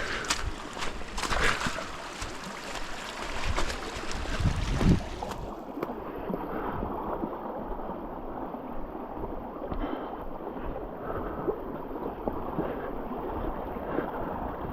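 Rushing river water, with knocks and splashes in the first few seconds and a heavy thump near five seconds in; after that the water sound turns muffled.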